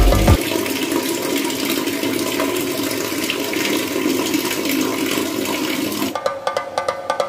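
Steady rush of running water that stops about six seconds in.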